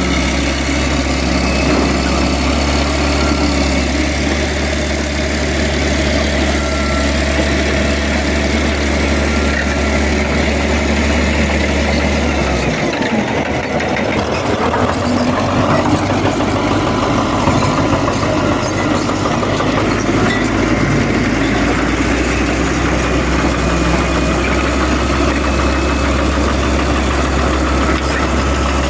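Engine of heavy road-construction machinery running steadily at a constant speed. Its deep hum drops out for a couple of seconds about halfway through, then returns.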